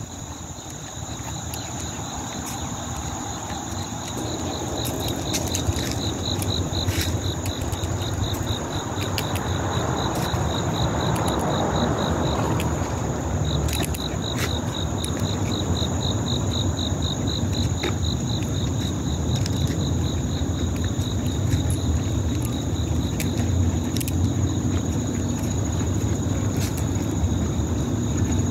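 Insects calling: a steady high-pitched hum throughout, with a rapid pulsing trill that starts a few seconds in, breaks off briefly near the middle and stops about three-quarters of the way through. Underneath is a steady low outdoor rumble.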